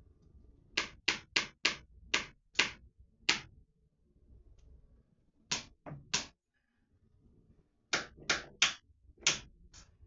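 Hammer blows driving a nail into a wall: about fifteen sharp strikes in irregular runs. Seven come in the first few seconds, then after a pause three more, then after another pause five more.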